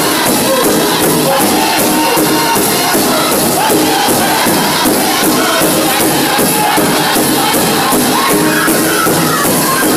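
Northern-style powwow drum group singing in unison over a large hand drum struck together in a steady, even beat.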